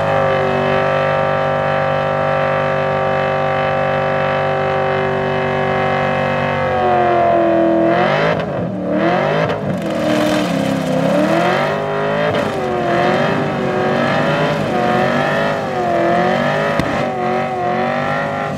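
Car engine held at high revs through a burnout, with the rear tyres spinning. The pitch holds steady at first, then from about seven seconds in it rises and falls again and again as the throttle is worked.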